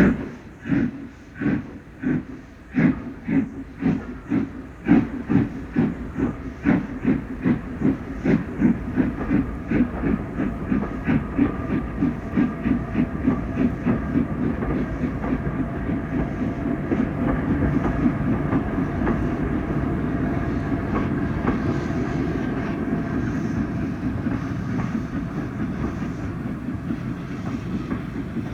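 Steam locomotive getting under way. Its exhaust beats start under two a second and quicken steadily until they blur into a continuous chuffing rush as it picks up speed.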